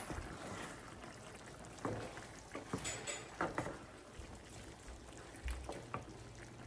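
Chicken and vegetables in teriyaki sauce being stirred in a pan: a faint wet bubbling with scattered light knocks of the utensil against the pan.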